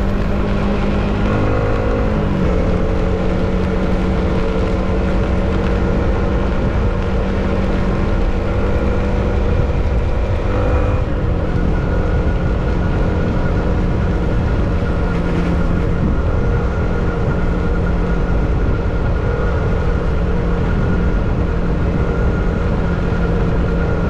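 Yamaha MT15 motorcycle's single-cylinder engine running steadily under way, its pitch shifting about two seconds and again about eleven seconds in, over a constant rush of wind and road noise.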